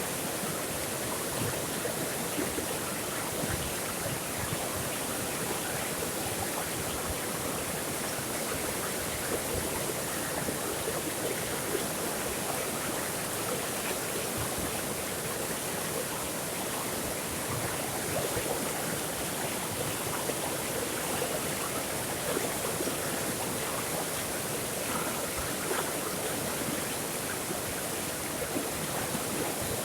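Water flowing in a stream, a steady unbroken rushing and splashing.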